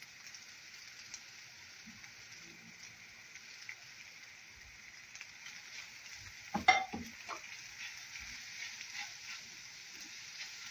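Chopped onion frying in oil in a pan, a steady light sizzle, with a brief clatter of a utensil against the pan a little past halfway.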